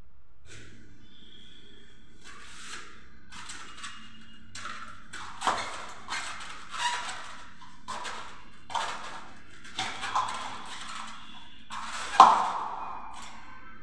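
Ceiling fan parts being fitted by hand: soft rustling at first, then about seven sharp clinks and knocks as the downrod and canopy are worked onto the fan motor, the last and loudest near the end with a short ring.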